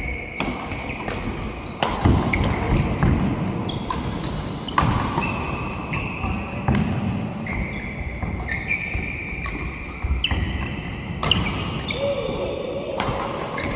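Badminton doubles rally: rackets repeatedly striking the shuttlecock, mixed with short high squeaks of court shoes on the floor.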